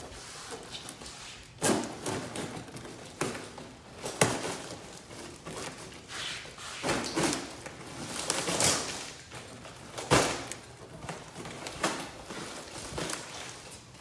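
Packing tape and plastic wrapping being cut and torn off a large taped parcel: irregular ripping and crinkling, with a few knocks against the table.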